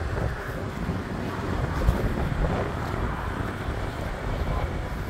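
Wind noise on the microphone over a Subaru Crosstrek driving past on a dirt track, its engine and tyres blended into a steady, even noise.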